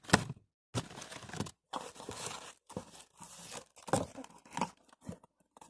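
Packing paper rustling, crumpling and tearing as a parcel is unpacked by hand, in irregular bursts with short pauses between them.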